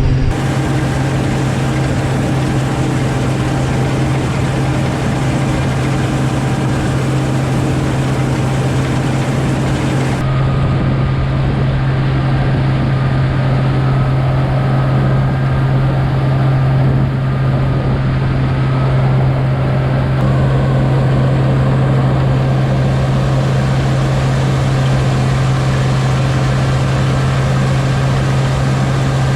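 Combine harvester running steadily while harvesting oats: a loud, constant low engine hum over the rush of the threshing machinery.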